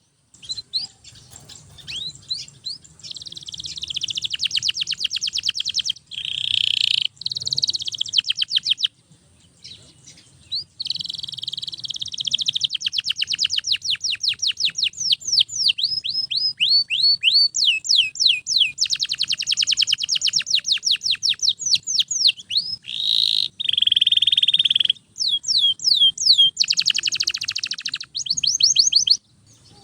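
Domestic canary singing nonstop in long, rapid trills of repeated falling notes, phrase after phrase with brief breaks and a longer pause about ten seconds in.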